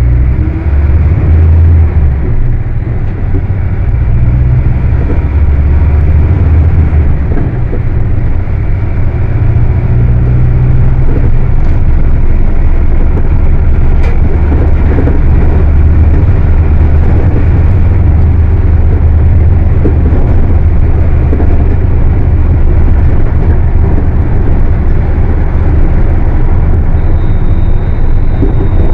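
Volkswagen 17-230 OD bus's diesel engine running while the bus is under way: a loud, continuous low drone. Its pitch shifts a few times in the first several seconds, then holds steadier.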